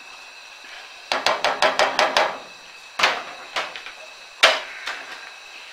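Cooking spatula knocking against the rim of a frying pan: a quick run of about eight knocks, then four single knocks, the second-to-last the loudest.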